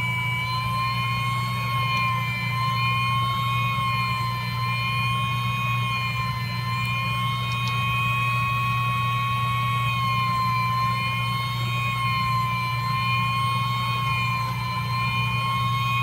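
Electric blower of a hot-air soldering rework setup running: a steady high whine that wavers slightly in pitch, over a low hum.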